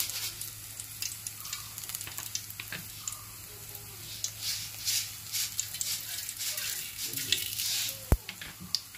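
Hot oil sizzling and crackling in an aluminium kadai, the pops growing denser about halfway through as mustard seeds go in and begin to splutter. A single sharp knock near the end.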